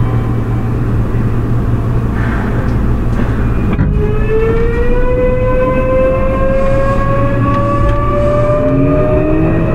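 Toei 6300-series train's Hitachi GTO-VVVF inverter and traction motors, over a steady low rumble. About four seconds in, after a click, the motors start a whine that rises steadily in pitch as the train accelerates, and a second, lower rising tone joins near the end.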